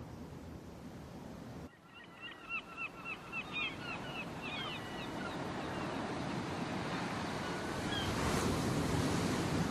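A low steady hum that cuts off suddenly, then waves breaking on a beach with gulls giving a quick run of short calls. The surf grows louder toward the end.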